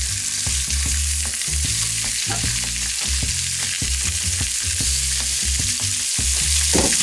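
Floured Spanish mackerel fillets frying in hot oil in a pan: a steady, dense sizzle.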